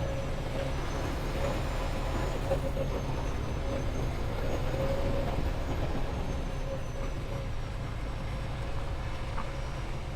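Semi-truck running steadily, a constant low rumble of engine and road noise with a steady hum through it.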